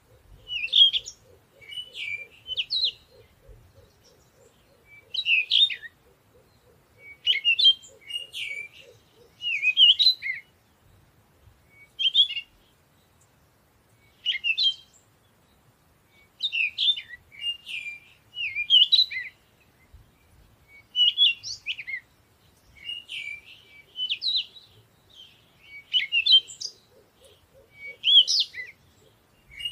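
Birdsong: short, quick chirping phrases repeated every second or two.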